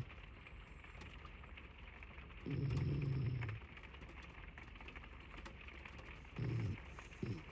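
A Spitz dog snoring over steady rain: one drawn-out low snore about two and a half seconds in, then two short snores near the end.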